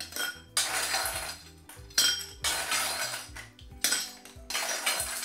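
Ice cubes scooped with a metal ice scoop out of a stainless steel bowl and dropped into a tall glass, rattling against the metal and clinking into the glass, about four scoops in a row.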